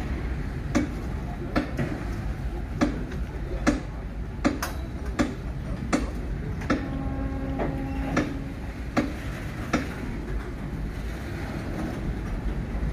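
Train of loaded flat wagons rolling slowly past, its wheels clacking over a rail joint at an even beat of a little more than one clack a second over a steady rumble. A brief steady tone sounds a little past halfway, and the clacks die out near the end.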